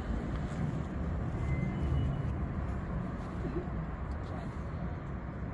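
Steady low rumble of road traffic passing below.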